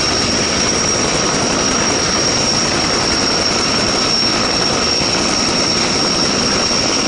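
Helicopter sound effect: a steady rushing noise with a high, steady whine, at an even level throughout.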